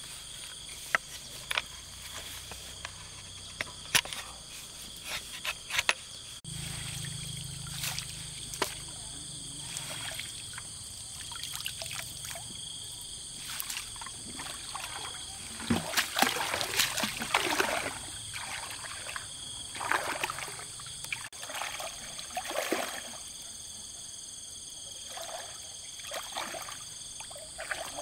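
Lake water sloshing and splashing as a hand net is worked through it, loudest about halfway through and again a few seconds later. Under it runs a steady high-pitched drone of insects, with scattered sharp clicks in the first few seconds.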